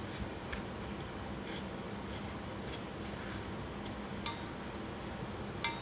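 Steady low room noise with two light, briefly ringing clicks, about four seconds in and again near the end, as the vinyl-wrapped stainless steel tumbler is handled.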